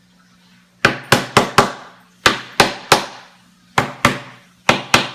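Hammer driving nails into a wooden birdhouse: about eleven sharp strikes in quick runs of two to four, with short pauses between the runs.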